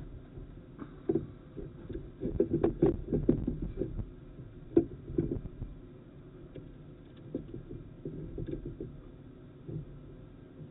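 Irregular muffled knocks and rubbing, busiest in the first half with a sharp knock about five seconds in, then sparser: handling noise from a borescope as its camera probe is worked in among the teeth of a snowblower engine's flywheel ring gear.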